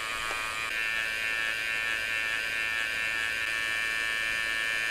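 Cheap hot air rework station's handpiece blowing steadily at medium airflow: a whirring fan whine over a rush of air, slightly louder about a second in. It is heating the LCD's flat-flex ribbon cable to remelt its failed adhesive.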